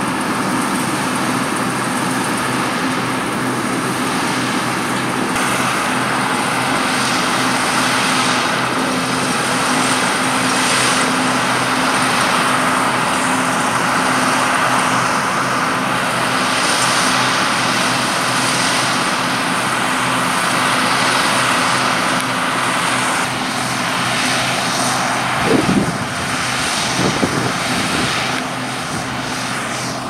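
John Deere 1075 combine harvester's diesel engine running steadily under load while it cuts and threshes wheat, its hum mixed with the dense rush of the machine at work. A few dull thumps come near the end.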